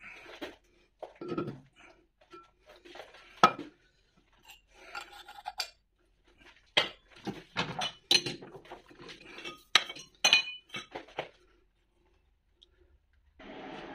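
Irregular metal clinks and knocks, some ringing briefly, as a steel bearing housing is unclamped from a stopped lathe's chuck and lifted out.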